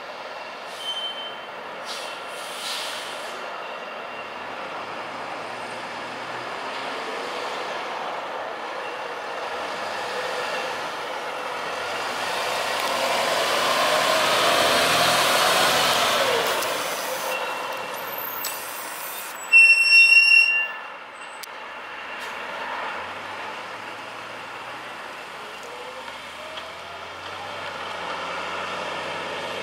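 Fire engine pulling out and driving past: its diesel engine noise swells to a peak about halfway through, then fades as it drives off. About two-thirds of the way through comes a brief, very loud burst of high-pitched tones, pulsing a few times.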